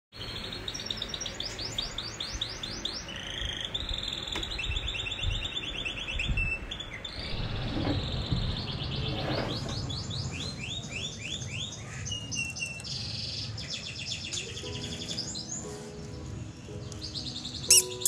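Domestic canary singing: long runs of fast rolling trills, one high note repeated many times a second, switching from one trill to the next. In the last few seconds steady lower notes sound along with it.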